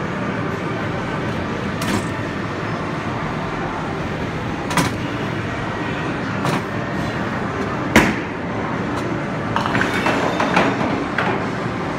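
Steady arcade din at a mini bowling lane, with several sharp knocks from the balls and lane, the loudest about eight seconds in.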